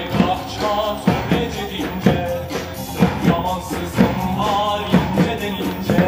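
Upbeat music with a heavy drum beat landing about once a second under a busy melody line.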